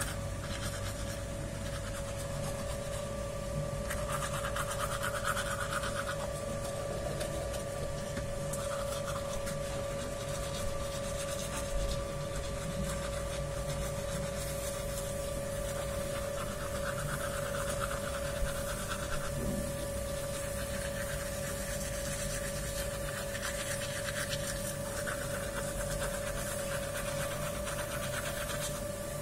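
Toothbrush scrubbing teeth in uneven spells, over a steady hum.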